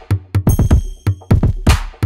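Background electronic music with a steady drum-machine beat, and a high ringing synth note about half a second in.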